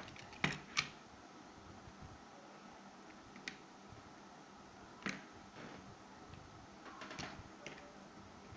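Stationery (a marker, scissors, a glue stick) set down into a quilled-paper organizer, making a series of sharp clicks and knocks against the paper coils and the tabletop: two close together near the start, a stronger one midway and a small cluster near the end, over faint room hiss.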